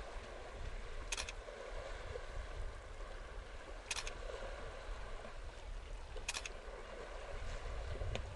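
Camera shutter clicking three times, a few seconds apart, over a steady low rumble.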